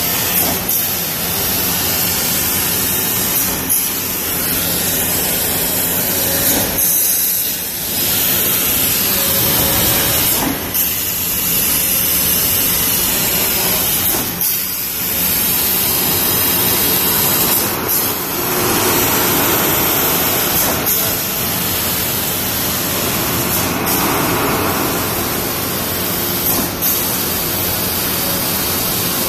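Trumpf laser cutting machine cutting aluminium sheet: a loud, steady hiss of the cutting head's gas jet, broken every three or four seconds by a brief dip and click.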